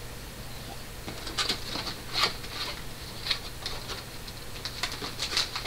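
A cardboard box being opened by hand, its flaps and the packing inside rustling and scraping in irregular scuffs and taps that begin about a second in.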